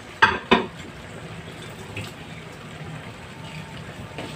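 Chicken menudo in tomato sauce simmering in a pan, a steady low bubbling hiss. Two short, sharp sounds come just after the start.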